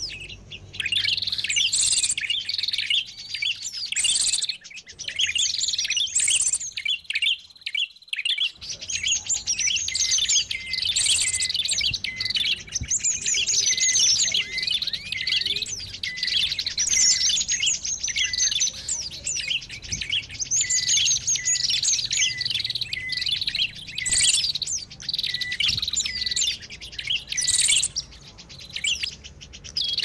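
Bird-lure recording (suara pikat burung ribut): a dense mixed chorus of many small songbirds chirping and twittering at once, high-pitched and overlapping, meant to draw wild birds in. A short lower note repeats steadily through much of it.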